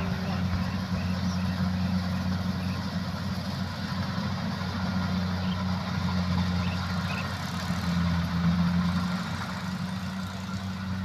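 Kubota rice combine harvester's engine running steadily with an even, low hum.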